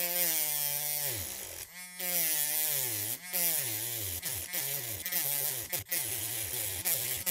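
Electric nail file's small motor with its grinding stone pressed against the plastic package of a chip: a rasping grind over a motor whine whose pitch sags repeatedly and recovers as the light tool slows under pressure. It nearly stalls about a second in and again around three seconds.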